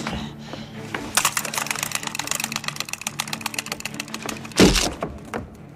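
A rapid run of sharp clicks lasting about three seconds, then a single loud, heavy thump near the end: sound effects in a film soundtrack.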